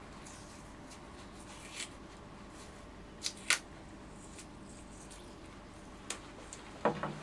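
Masking tape being pulled off its roll and wrapped by hand, with scattered crackles and snaps, the sharpest two about three and a half seconds in. A duller thump comes near the end.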